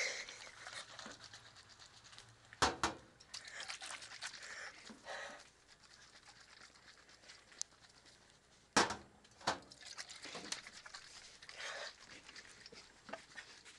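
Handling noise: a few sharp knocks and clatters, the loudest about three seconds in and twice around nine seconds, with rustling in between.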